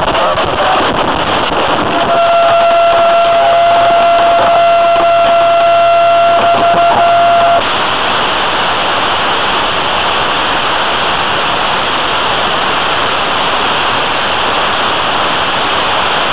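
Static hiss from an analog FPV video receiver's audio channel. From about two seconds in, a steady high tone with a fainter higher overtone and a low hum sit over the hiss; at about seven and a half seconds they cut off, and only a slightly quieter hiss remains as the video link from the plane drops out.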